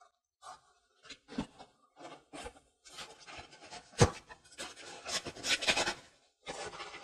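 Packing foam rubbing and scraping against the inside of a plastic acrylic cover in irregular strokes, with one sharp knock about four seconds in and a busier stretch of rubbing near the end.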